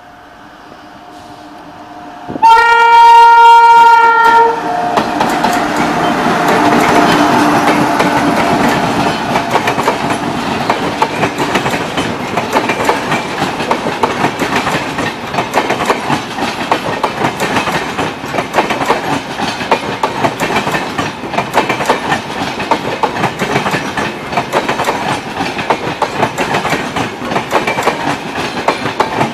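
Indian Railways electric locomotive of the 12260 New Delhi–Sealdah Duronto Express sounding one loud horn blast of about two seconds, a couple of seconds in. The train then runs past, its coaches clattering with a steady clickety-clack of wheels over the rail joints.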